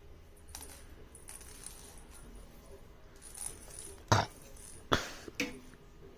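A few light sharp taps or clicks, three in the second half, over a quiet room.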